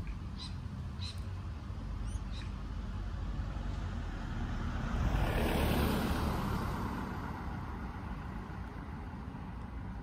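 A vehicle passes by on the road, its noise swelling to a peak about five to six seconds in and then fading, over a low steady rumble. A few short high chirps come in the first couple of seconds.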